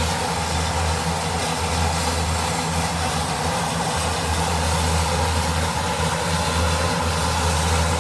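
Jet aircraft engines running steadily: a continuous low hum under a broad rushing hiss.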